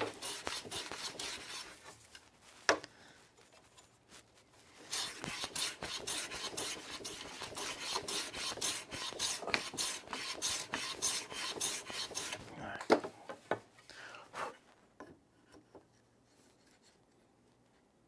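Small hand plane shaving a walnut tenon, paring it down to fit its housed mortise: quick, repeated scraping strokes of the blade on the wood, a short run at the start and a long run in the middle. There are a few sharp knocks on the bench, one at about three seconds and several near the end, and the sound dies away after that.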